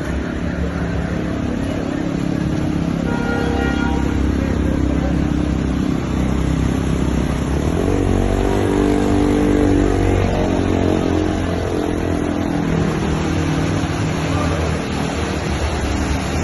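Road traffic: motor vehicle engines running over a steady wash of noise, one engine growing louder and fading again about halfway through. A brief higher tone sounds about three seconds in.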